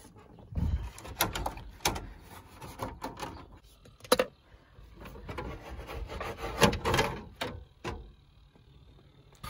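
Scattered plastic clicks, knocks and rubbing as the interior dash trim of a Chevrolet pickup is handled and worked loose, with a few duller thumps.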